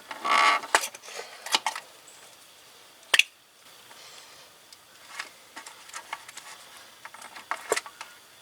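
Scattered sharp clicks and knocks, with a short scraping rustle near the start, from ignition coil packs being unplugged, pulled out and swapped between cylinders.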